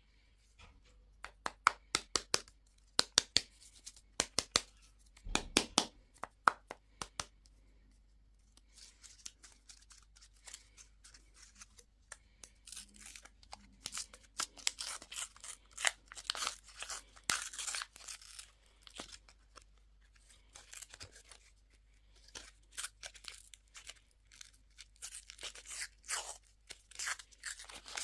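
Plastic candy and toy packaging being handled and unwrapped: a run of sharp clicks and taps for the first several seconds, then dense crinkling and tearing of wrapper film.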